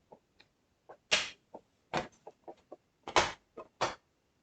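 Plastic snap-in clips of an all-in-one PC's cover popping loose as the cover is pried and wiggled off: a series of sharp clicks and snaps, the loudest about a second in, at two seconds and just after three seconds.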